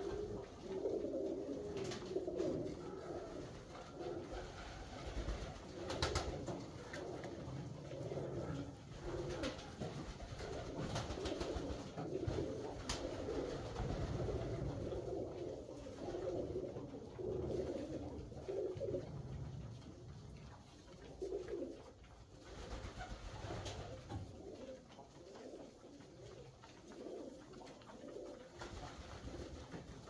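Alföldi-Körösi tumbler pigeons cooing, several low coos overlapping without a break, with a few sharp clicks here and there. The cooing thins out somewhat in the last third.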